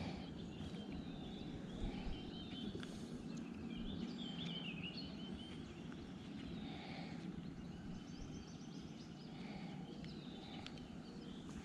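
Birds singing faintly, in short warbling phrases, over a steady low outdoor rush of river and wind noise.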